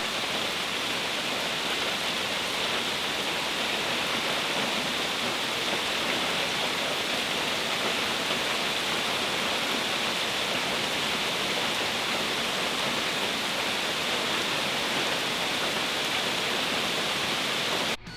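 A steady, even hiss of noise that cuts off suddenly near the end.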